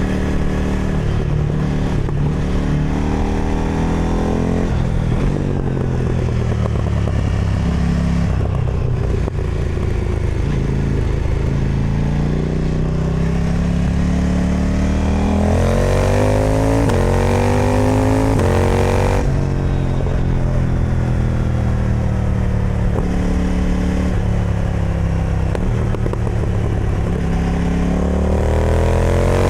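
KTM 990 Duke twin-cylinder engine through an Austin Racing aftermarket exhaust, ridden hard: the pitch climbs under throttle in steps through several gear changes about halfway through, drops suddenly when the throttle closes, and climbs again near the end.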